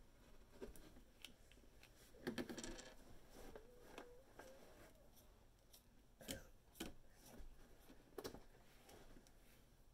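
Near silence: room tone with a few faint, scattered clicks and taps, and a brief faint tone about four seconds in.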